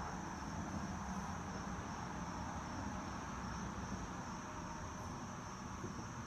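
Steady insect chorus, a continuous high trill like crickets, over a low background rumble.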